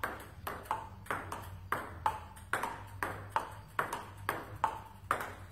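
Table tennis rally: the ball clicks in turn off the bats and the table in a steady run of about three to four hits a second, many with a short ringing ping.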